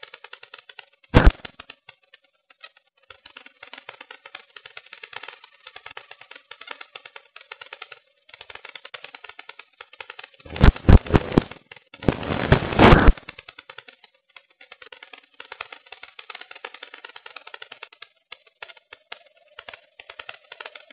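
Airflow and airframe rattle picked up in flight by a keychain camera's microphone mounted on a Pelikan Swift electric model glider: a crackly, broken rattle. It is interrupted by a loud buffeting blast about a second in and by louder, longer buffeting from about ten to thirteen seconds in.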